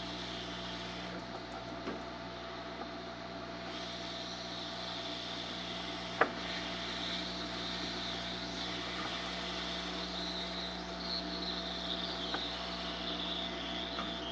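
Steady hum of a hot air rework station's blower, with a wavering high whine that grows stronger about four seconds in. One sharp click about halfway through, and a few faint ticks.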